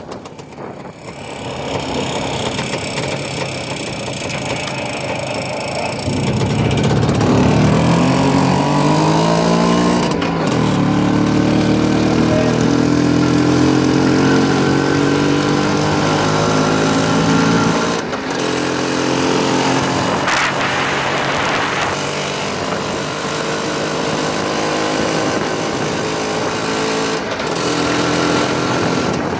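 Pannonia sidecar motorcycle's single-cylinder two-stroke engine running under way. Its pitch rises as it pulls away and drops back sharply twice, about ten and eighteen seconds in.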